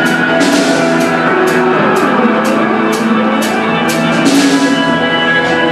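A live band plays an instrumental passage of held electric and steel guitar chords, with a note sliding down in pitch about two seconds in. Drums keep a steady beat with cymbal strikes about twice a second.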